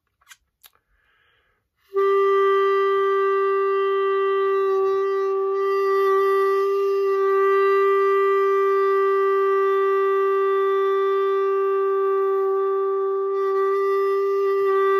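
C clarinet holding open G as one long unbroken note, starting about two seconds in. The note is kept going by circular breathing, puffing air out of the cheeks while breathing in through the nose, and the tone wavers slightly at a few points.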